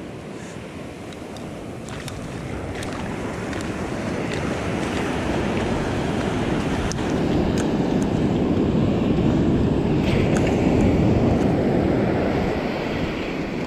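Ocean surf breaking and washing up a sandy beach, a steady rush that builds over several seconds, peaks, and eases off near the end.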